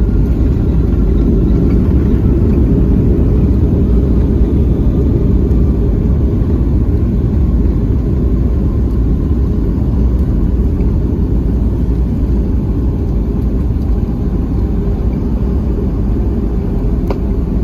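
Steady low rumble heard from inside the cabin of a Boeing 757-200 rolling on the ground after landing, its engine and rolling noise easing slightly as it slows. A single sharp click near the end.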